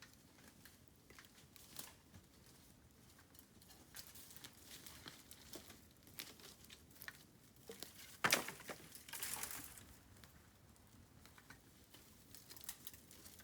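Bamboo fire crackling with scattered small pops and one sharp loud crack about eight seconds in, followed by a brief rustling swell of dry bamboo leaves and twigs.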